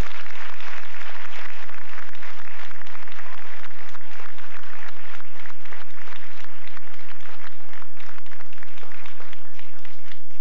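Audience applause: many hands clapping in a dense, sustained patter that thins out and dies down near the end.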